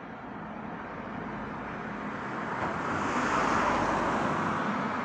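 A car driving past on the street: its tyre and engine noise grows, is loudest about three and a half seconds in, then fades.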